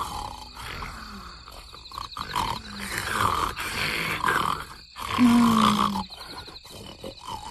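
Several people snoring loudly in their sleep, in rough, rasping breaths, loudest about five seconds in. Crickets chirp faintly underneath.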